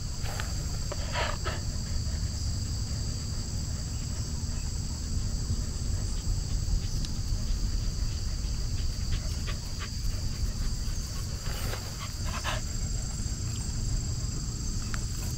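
Steady high-pitched chorus of crickets or similar insects over a low rumble, with a few short dog barks: two about a second in and two more around twelve seconds in.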